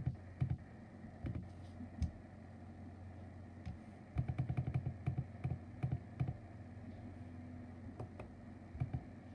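Plastic push-buttons on a Sangean HDR-15 clock radio clicking under a fingertip, a few single presses and then quick runs of several presses a second, over a steady low hum.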